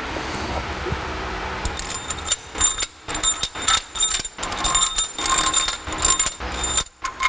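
A power tool running in many short bursts, starting and stopping again and again with a steady high whine, as the new cylinder head bolts are run down before torquing. The bursts begin about two seconds in.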